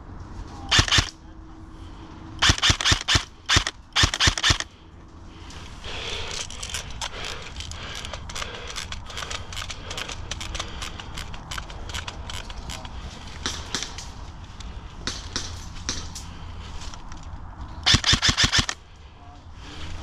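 Airsoft electric M4 rifle firing short full-auto bursts of rapid, evenly spaced shots: four bursts in the first five seconds and one more near the end. In between, fainter scattered airsoft shots pop from farther off.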